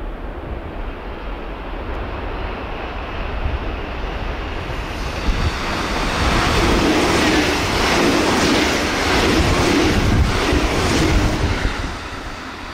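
JR Central 313 series electric multiple unit passing at about 115 km/h: a rush of wheels and air that grows for the first few seconds and stays loud through the middle. A rhythmic run of clacks from the wheels over the rail joints is heard as the cars go by, and then the sound falls away near the end.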